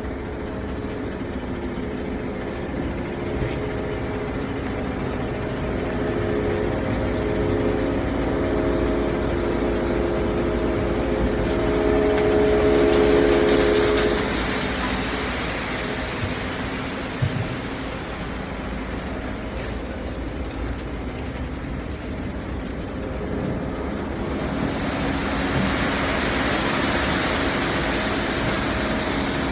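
Engine of concrete-pouring machinery running steadily. It swells about halfway through, then eases, with a short thump shortly after and a rising hissing rush near the end.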